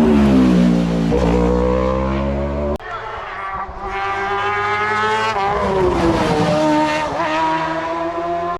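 Hill-climb race car engine running hard. Its note drops in the first second, and there is an abrupt change about three seconds in. A higher engine note then climbs steeply, falls back and holds steady near the end.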